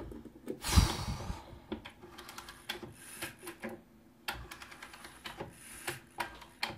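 Irregular mechanical clicking from a Carillon 31-day pendulum wall clock as its hands are turned by hand at the dial, with a bump and a brief rushing noise about a second in.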